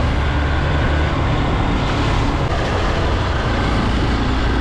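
Motorcycle riding at a steady pace, a constant low engine hum under wind rush on a helmet-mounted camera's microphone.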